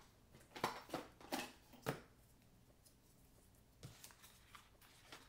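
Cardstock and small craft supplies being handled on a work table: four short, crisp rustles and taps in the first two seconds, then a few fainter ones about four seconds in.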